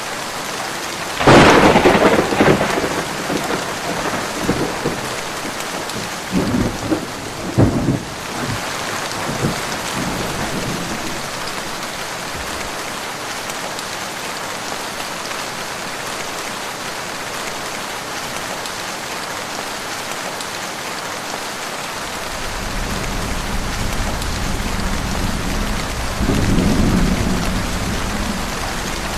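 Heavy rain falling steadily through a thunderstorm. A loud, sudden thunderclap about a second in rolls on with further cracks for several seconds, and a low rumble of distant thunder builds near the end.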